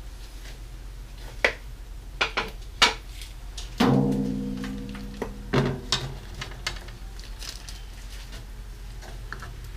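A 1980 Gretsch rack tom being handled: a few sharp knocks, then about four seconds in the drum is struck and rings out with a clear pitch that fades over a second or so, followed by a second, shorter hit and a few lighter taps.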